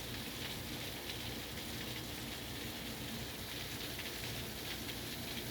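Steady rainfall, a constant patter of drops on surfaces.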